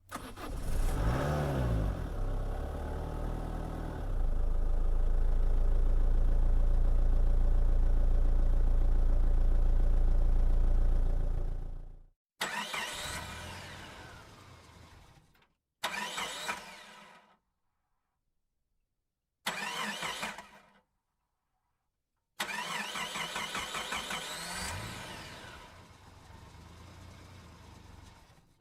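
A series of separate engine-start recordings. The first engine cranks and catches with its pitch rising and falling, then runs loud and steady for several seconds before cutting off abruptly. Four shorter starts follow, each with rising and falling pitch and each ending in a sudden cut.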